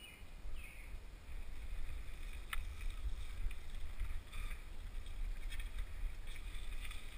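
Rumble of air buffeting a helmet-mounted camera's microphone as a mountain bike rolls over a wooden boardwalk and onto a dirt trail, with the bike and trail rattling underneath. It grows louder about a second in, and there is one sharp click about two and a half seconds in.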